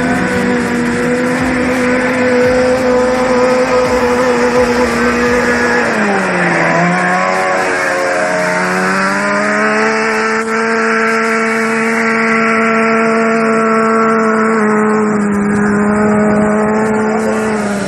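Off-road race vehicle engine running at steady high revs. It drops in pitch about six seconds in, climbs back up over the next few seconds, then holds steady again.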